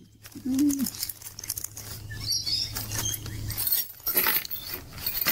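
Clear plastic parts bag crinkling and rustling as it is handled and opened, with small metal T-slot nuts clinking inside it.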